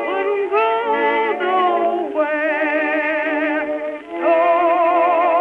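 Music: a wordless, voice-like melody with strong vibrato, held notes and sliding pitch changes, thin and without bass.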